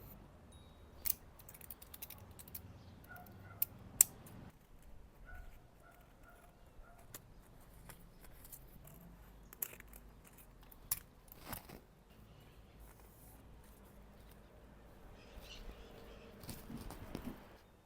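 A sheet of paper being handled: quiet rustling with scattered sharp clicks and snaps, the loudest about four seconds in.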